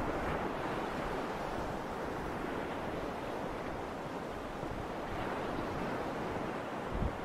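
Steady rushing of wind across open ground, with a short gust buffeting the microphone near the end.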